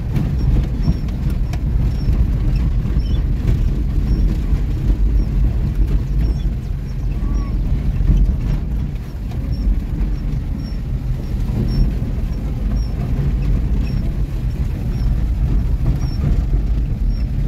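Car driving slowly over a rough, muddy dirt track, heard from inside the cabin: the engine running low under a steady rumble of body and tyres, with scattered small knocks and rattles. A faint high chirp repeats about twice a second.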